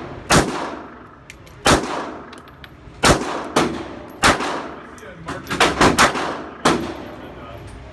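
Gunfire: about nine sharp shots at irregular intervals, several in quick succession a little before the end. Each shot trails off in a ringing echo.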